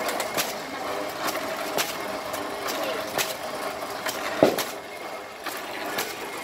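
Flywheel-driven wooden rice-pounding machine working, its lever-arm pestle knocking into the mortar about twice a second as it pounds young green rice into khao mao, with one louder knock about four and a half seconds in. Market chatter underneath.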